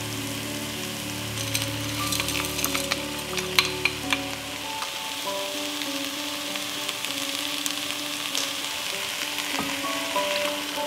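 Chopped peppers and onions sizzling in oil in a nonstick pan as ingredients are added on top. A run of sharp clicks comes a couple of seconds in as frozen corn kernels drop into the pan, and vegetable broth is poured in near the end.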